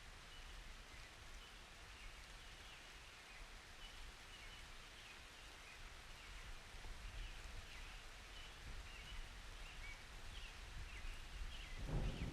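Quiet rain ambience: a soft, even hiss with faint, high chirps repeating through it. Near the end a low rumble of thunder starts to build.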